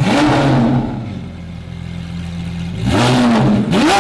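Lamborghini Aventador SVJ's V12 engine being revved on a freshly rebuilt car. A rev falls back to a steady idle, then a second rev rises about three seconds in and drops, with another blip starting at the end.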